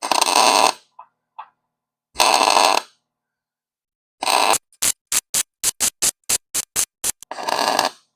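MIG welder arc crackling and buzzing as it welds steel: three separate welds of under a second each, then a quick run of about a dozen short stitch pulses, then one more longer weld near the end.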